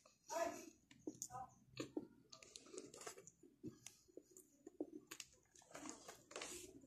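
A person chewing soft noodles and bread close to the microphone: quiet wet mouth clicks and lip smacks, with a breath about half a second in.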